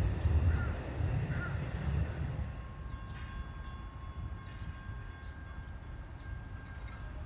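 Rumble of a receding Amtrak passenger train, fading away over the first two to three seconds and leaving a quieter steady background with a couple of faint bird chirps.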